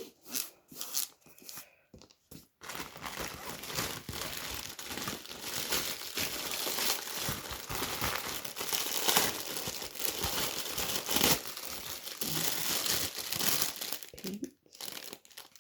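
Packaging of a paint-by-number kit crinkling and rustling as it is unwrapped by hand. A few short rustles come first, then steady crinkling for most of the rest.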